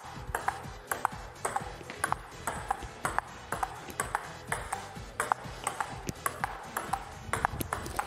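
Table tennis rally: a celluloid ball clicking off rubber paddles and bouncing on the table in a quick, even run of sharp ticks, several a second, over background music.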